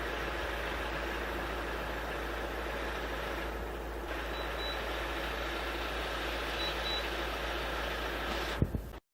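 Air conditioner running steadily on power from an inverter: a constant low hum with fan and compressor noise. Two pairs of faint short high beeps come about halfway through and again later. A sharp thump comes near the end, just before the sound cuts off.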